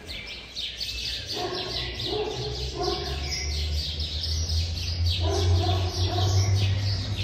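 Many small birds chirping continuously in short, overlapping chirps, over a steady low rumble that swells about three seconds in.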